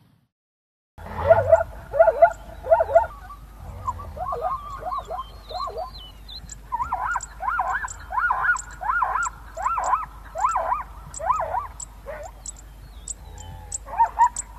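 Zebra calling: bouts of repeated short barking yelps, each rising and falling in pitch. A loud run comes about a second in, softer calls follow, a fast run of calls comes midway, and another run comes near the end.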